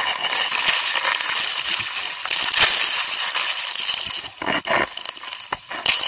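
Waterfall water splashing close to the microphone: a loud, dense hiss of spray with irregular crackling and popping, with a few sharper pops about four and a half seconds in and near the end.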